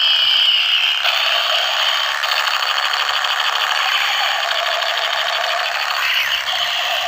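Battery-powered toy sniper rifle's electronic sound effect playing through its small built-in speaker: a rapid, rattling, pulsing buzz with a falling tone at the start.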